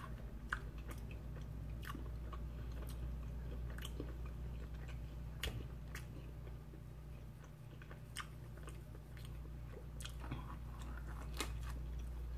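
A person chewing a mouthful of stromboli with the mouth close to the microphone: soft wet mouth clicks and smacks, about one or two a second, over a steady low hum.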